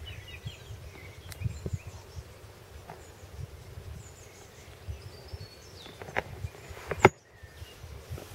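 Outdoor pond-side ambience: small birds chirping over a low, gusty wind rumble on the microphone, with a few sharp knocks near the end, the loudest just before a brief dropout.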